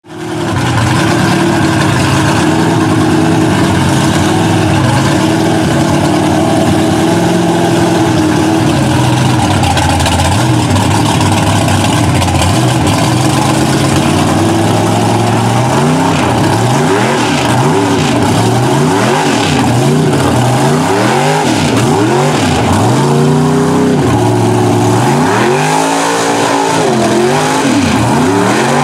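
Big-block Chevy V8 in a 900-plus-horsepower mud truck running hard, first at a fairly steady pitch, then, from about halfway, revved up and down again and again as the truck churns through the mud hole.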